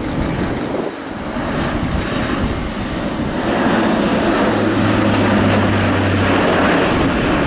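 Airbus A400M's four TP400-D6 turboprop engines and eight-bladed propellers droning as the transport flies past, growing louder about three and a half seconds in. A low steady propeller hum stands out in the middle.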